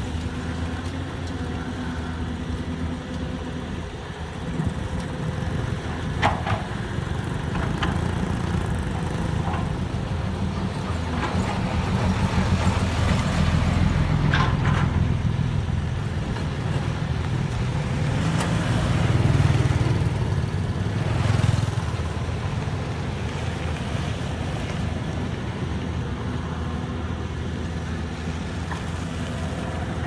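Diesel engine of a Caterpillar tracked excavator running steadily while it works. A few short metallic clanks come from the machine. A passing motorbike makes the engine noise swell through the middle.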